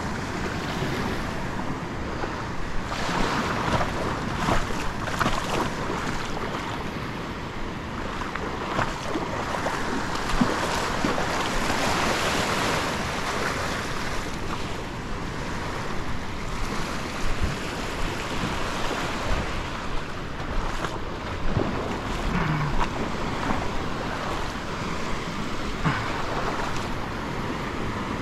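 Small waves washing up and breaking in the shallows right at the microphone, with wind rumbling on the microphone.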